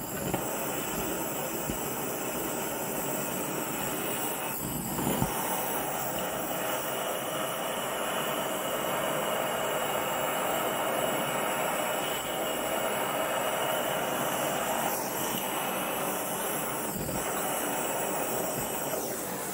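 Hand-held propane torch burning with a steady hiss, with brief dips twice. It is heating the aluminium transfer case housing around a stuck front output shaft bearing, to loosen the bearing.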